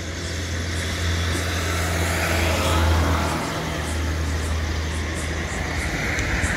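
Motor vehicle passing close by: a steady low engine hum with road noise that swells about three seconds in and rises again near the end.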